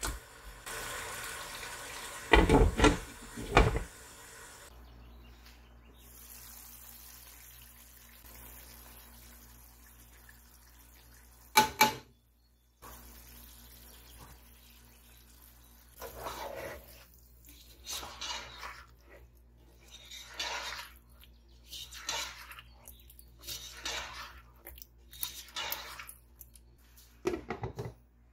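Kitchen work with water: a cluster of loud knocks a few seconds in and a sharp click near the middle, then a run of short swishes every second or two over a low steady hum.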